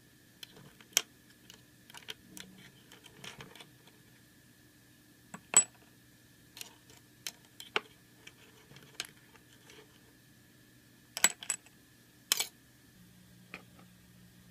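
Small hard clicks and clinks of tiny shijimi clam shells and a small utensil against a miniature stainless-steel sink as the clams are handled and washed. The clicks are scattered and irregular, with a few sharper clinks about five seconds in and again near eleven and twelve seconds, over a faint steady hum.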